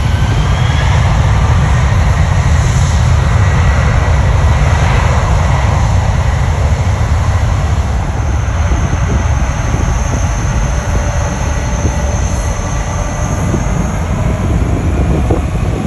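United Boeing 767-300ER's Pratt & Whitney turbofans at high thrust: a loud, steady jet roar with a deep rumble, easing slightly in the second half. From about halfway a thin high whine runs over it for several seconds.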